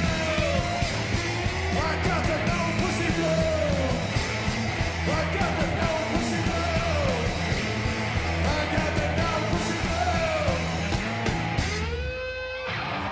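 Live rock band playing loudly, with yelled, wailing vocals over a steady pounding low end. About twelve seconds in the band stops suddenly, leaving one held pitched note that rings briefly.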